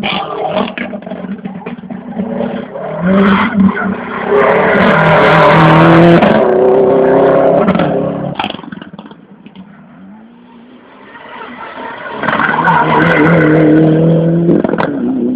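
Rally cars driven flat out past the spectator: a yellow rally car's engine revs hard up through the gears, loudest about six seconds in, then fades. Near the end a white Mitsubishi Lancer Evolution rally car comes up revving hard. A few sharp cracks punctuate the engine notes.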